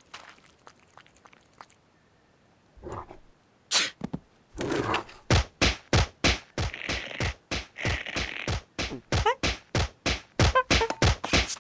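Cartoon sound effects: a fast, even run of thunks, about three or four a second, starting about four and a half seconds in after a mostly quiet stretch with a few faint ticks.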